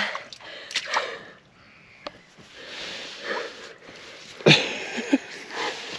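Breathy laughter and the rustle of hands being rubbed on a cotton hoodie, with a louder burst about four and a half seconds in.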